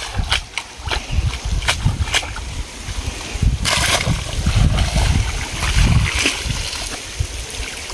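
Splashing and sloshing in shallow, muddy pond water as a cast net is dragged in through the mud and a person wades. There are scattered sharp clicks early on, and one louder splash about three and a half seconds in.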